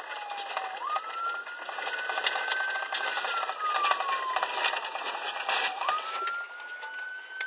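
Police car siren on a slow wail: its pitch sweeps up, holds high, then slides down over a few seconds before sweeping up again, twice. Under it runs a steady clatter of clicks and knocks.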